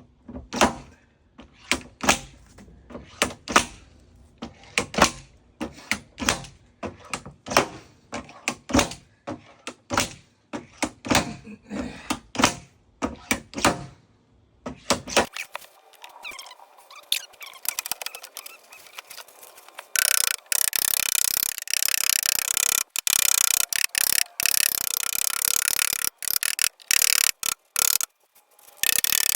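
Paintless dent repair work on a car's sheet-metal fender: a run of sharp taps, about one or two a second, as the metal is worked. About two-thirds of the way in, a loud steady hissing rush takes over, cutting out briefly every second or two.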